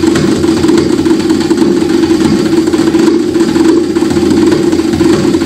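Live acoustic trio music with cello and drum kit: a loud, steady low drone with a rapid, rough flutter, held without a break.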